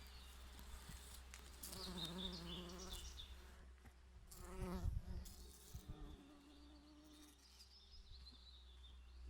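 Bees buzzing around flowers, the buzz wavering in pitch as they fly; one comes close and is loudest about halfway through. Faint bird chirps sound in the background.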